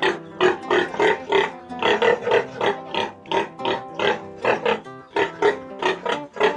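Background music with plucked notes in a steady quick rhythm, with pigs grunting under it.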